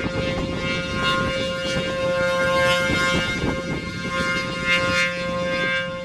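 ACA P-15 rotating outdoor warning siren sounding a steady alert tone, its loudness swelling and dipping as the horn turns. Gusty wind buffets the microphone throughout.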